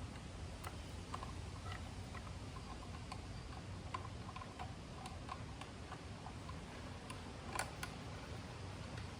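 Light, irregular clicks and taps from a hand tool and bolts as the T27 Torx bolts holding the air cleaner backing plate are backed out, with one louder click near the end.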